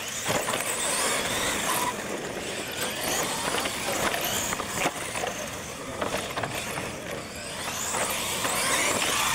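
Radio-controlled monster trucks racing side by side on concrete: their motors whine over the sound of the tyres, with a few sharp knocks. A rising whine comes near the end.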